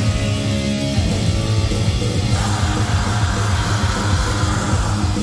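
Live heavy metal band playing: a distorted electric guitar riff, with harsh screamed vocals coming in a little over two seconds in.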